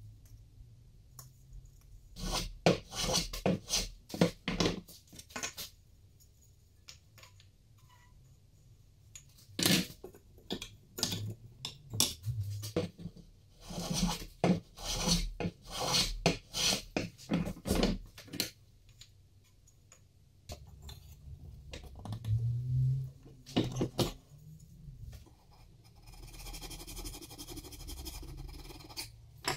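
A wooden wedge being pushed into and pulled out of a beech plane body: clusters of short wood-on-wood knocks and scrapes. Near the end, a steady rasping as the inside of the plane's throat is filed.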